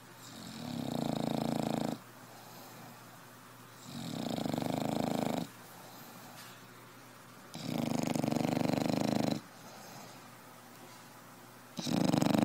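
Snoring in a slow, even rhythm: four long snores about four seconds apart, with quiet breathing between them. The last snore is the loudest.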